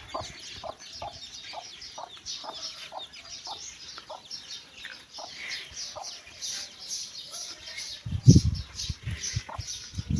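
Chicks peeping constantly while a mother hen clucks in short, evenly spaced notes, about two or three a second, thinning out after the first few seconds. About eight seconds in, loud low thumps break in over them.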